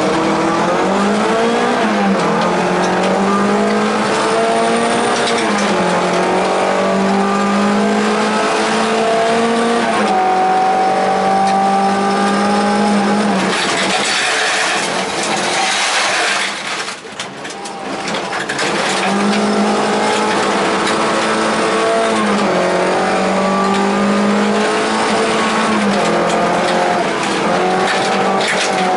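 Volvo 242 rally car's engine, heard from inside the cabin, pulling hard on a gravel stage, its pitch climbing and dropping back with each gear change. About halfway through it backs off and the hiss of gravel under the tyres comes up, then it pulls hard again.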